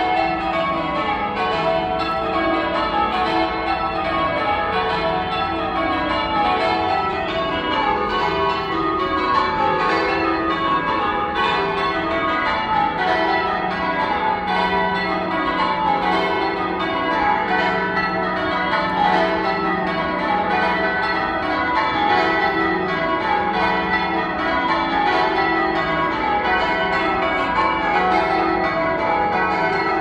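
Church tower bells change ringing: a full ring of bells struck one after another in continuous rows, each row stepping down in pitch, with the tones overlapping and ringing on.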